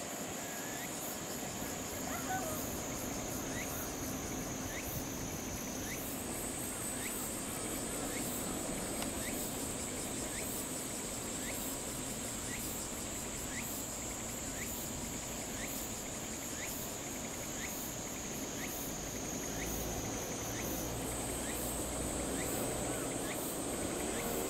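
Insects droning in a steady high-pitched chorus that steps up in pitch twice, with a short chirp repeating about once a second. A faint low rumble comes in near the end.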